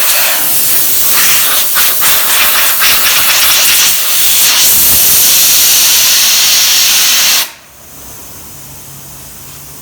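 Compressed-air blow gun blasting into a Hyundai Solaris heater blower fan to clean dust and dirt out of its blades and motor: a loud, steady hiss of air. It cuts off suddenly about seven and a half seconds in, leaving a quieter steady background.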